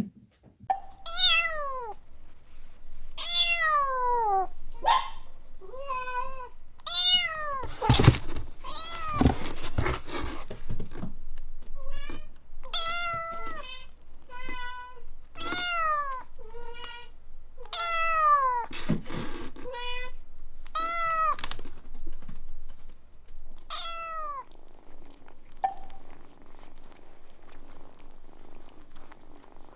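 Kitten meowing over and over, about fifteen high calls that mostly fall in pitch, with a few thumps and rustles around the middle. Near the end the meowing stops and a low, steady purr takes over.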